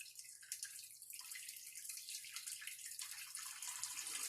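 A person urinating into a toilet bowl: a few scattered drips, then a steady trickling stream of water from about a second in.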